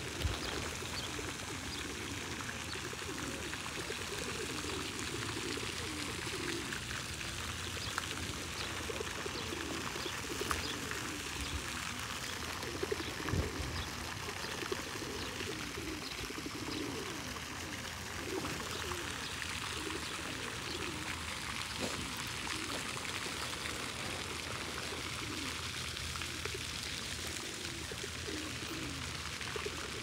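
Steady trickling of running water, with short low bird calls repeating throughout.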